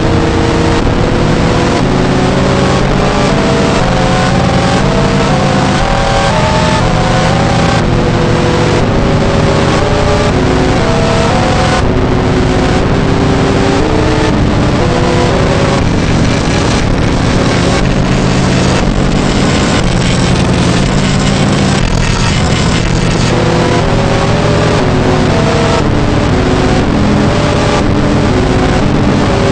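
Emergency alert alarm: loud, heavily distorted electronic tones stepping up and down from note to note like a tune over steady low tones, buried in a harsh constant noise, running without a break.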